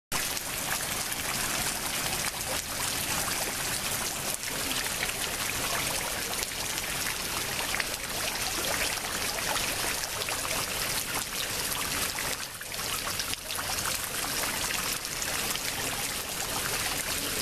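Floodwater running and trickling: a steady wash of moving water with many small splashes.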